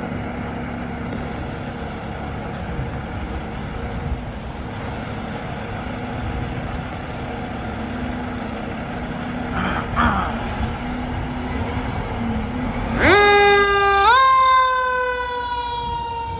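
A fire department heavy rescue truck's diesel engine idles with a steady hum, with a short hiss of air about ten seconds in. About thirteen seconds in, the truck's siren starts, winding up in two quick steps to a loud wail that then slowly falls in pitch.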